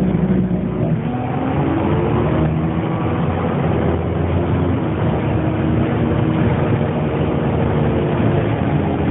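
1998 Dennis Dart bus running, its engine's rumble overlaid by several whining tones that rise and fall in pitch: the weird noise the bus is making.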